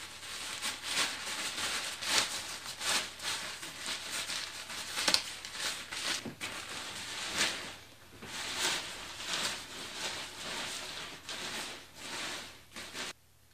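Water-resistant nylon of an Alpkit Hunka bivvy bag rustling and crinkling as it is pulled out of its stuff sack and unrolled. The rustling is continuous and uneven and stops just before the end.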